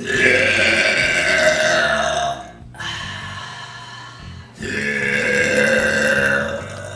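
A woman burping: two long, loud burps of about two seconds each, with a softer stretch of burping between them.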